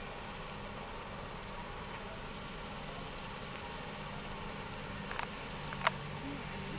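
Faint, steady low rumble of a heavy diesel truck creeping forward under load, with a steady high-pitched insect drone over it. There is a sharp click a little before six seconds in.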